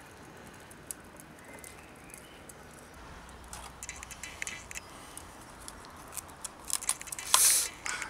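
Clicks and scrapes of a thermite-burnt aluminium drink can being picked up and handled in gloved hands. There is a louder scraping crunch near the end as the lump of thermite iron and the can are pulled apart.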